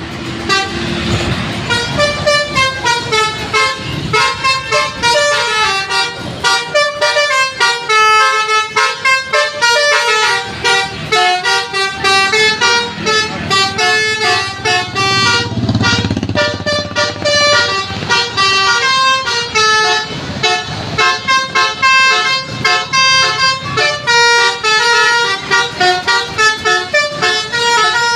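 A tour bus's telolet basuri horn, a multi-note musical air horn, playing a fast tune of quickly stepping notes over and over.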